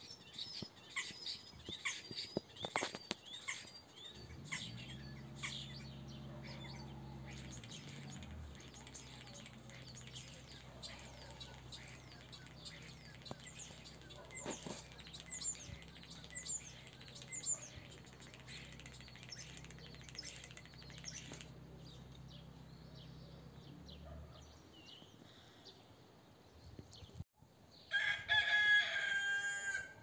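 Birds chirping and twittering, with a low steady motor hum underneath from about four seconds in until about twenty-four seconds. Near the end a rooster crows once, the loudest sound.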